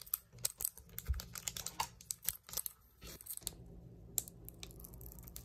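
Foil Yu-Gi-Oh! booster pack wrapper crinkling in the fingers and being snipped open along its crimped top with scissors: a run of sharp crackles and clicks.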